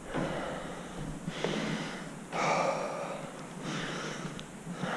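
A man's breathing, a few hard breaths in and out, each about a second long.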